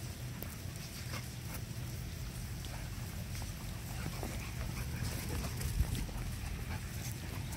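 Samoyed and Keeshond puppy play-wrestling: scuffling and short dog noises over a steady low rumble, with one sharper thump about three-quarters of the way through.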